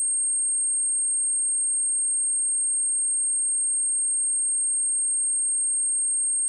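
A steady, high-pitched 8534 Hz sine-wave test tone, one pure pitch at a constant level.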